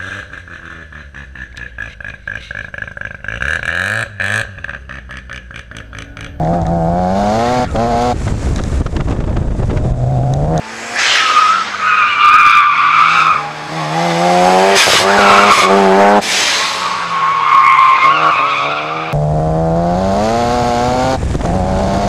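Mazda RX-7 race car's rotary engine revving hard through the gears, its pitch climbing and dropping back at each shift. The tyres squeal through the corners twice around the middle.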